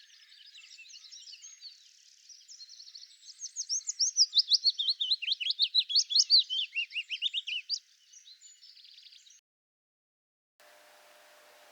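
A small songbird singing a fast, chattering song of rapid high notes that sweep sharply in pitch. The song is loudest in the middle and breaks off about two-thirds of the way through. Near the end a faint steady hum with light hiss begins.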